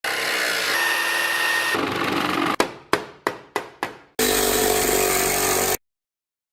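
Shop power tools running loud, cut together with a quick series of five sharp hammer-like blows about a third of a second apart. A last burst of power-tool noise then stops abruptly.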